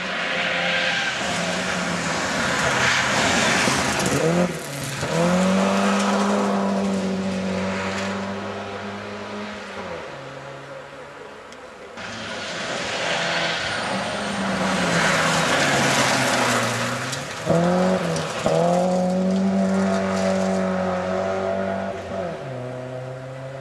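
Two rally cars pass one after the other on a gravel road. Each engine revs up through quick gear changes, about four seconds in and again about seventeen seconds in, then holds at high revs as the car pulls away, over a hiss of tyres on loose gravel.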